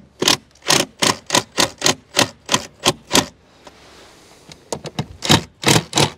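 Cordless impact driver driving a screw through a wooden batten into a rafter, run in short bursts about three a second, in two runs with a pause of a second or so about three seconds in.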